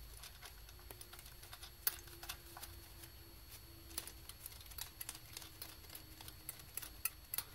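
Faint, irregular light clicks and ticks of metal fuel-line fittings being handled and threaded finger tight by gloved hands.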